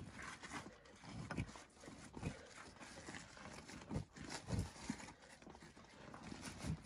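Gloved hands scooping and scraping loose soil out of a narrow trench, with irregular dull thuds.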